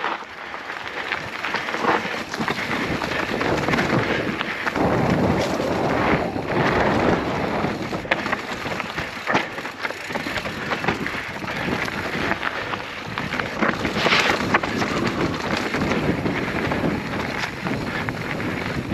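Mountain bike rolling over a rough, rocky dirt trail: steady tyre noise with frequent knocks and rattles, and wind buffeting the microphone.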